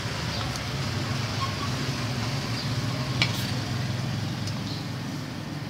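A steady low hum, with a few light taps of a kitchen knife chopping spring onions on a wooden chopping block; one sharper click comes about three seconds in.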